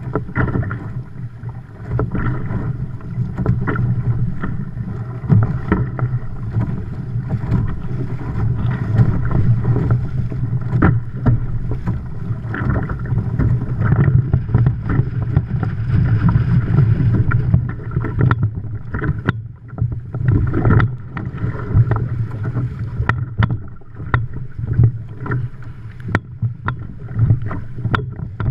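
Hobie Adventure Island sailing kayak running fast under sail through choppy water: water rushing along the hull with frequent short slaps and splashes as it hits the waves, over a heavy low buffeting of wind on the microphone.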